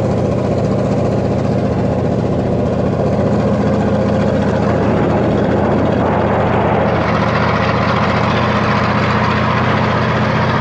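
A MAN KAT truck's V8 diesel engine drones steadily at an even pitch while the truck cruises along a paved road, with road and tyre noise throughout.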